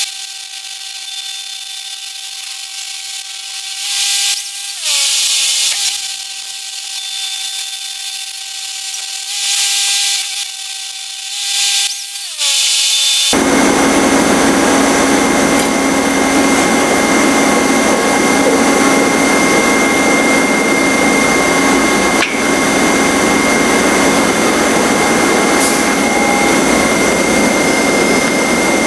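A handheld electric power tool whining, its pitch sagging several times as it is loaded against the steel, with short bursts of grinding hiss. About 13 seconds in, the sound switches abruptly to a loud, steady machine drone with a constant hum.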